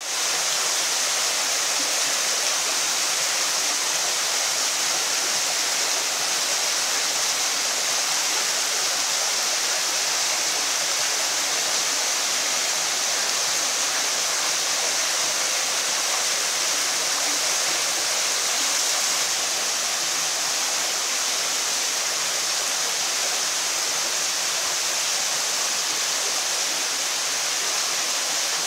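Water pouring steadily over an artificial rock waterfall, a continuous bright splashing hiss with little low rumble.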